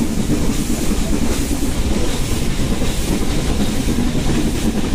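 Nilgiri Mountain Railway passenger train running uphill: a steady rumble and clatter of the coach wheels on the rails, heard from the open doorway of a moving carriage.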